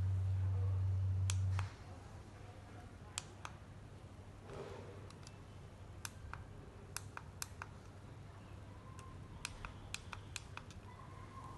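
Plastic buttons on a handheld non-contact infrared thermometer being pressed, making a dozen or so sharp clicks spread out, some in quick pairs. A low steady hum runs at first, then cuts off suddenly about a second and a half in.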